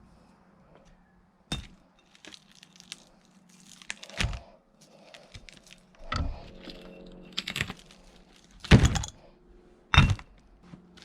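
A 330 kg clamp magnet knocking and clunking against half of a cast-iron railway track chair as it snaps on and is pulled at: about six sharp metal knocks, the loudest near the end.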